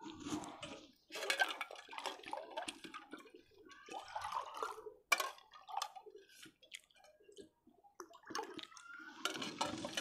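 A spoon ladling a white drink from a steel pot into a glass: splashing and dripping liquid with sharp clinks of the spoon against metal and glass.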